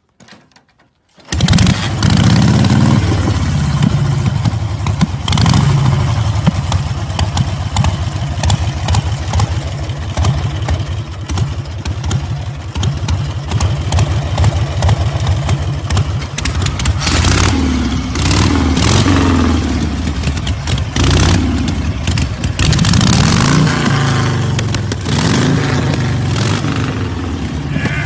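Vintage Harley-Davidson V-twin kick-started, catching about a second in and then running loud, with repeated revs in the second half.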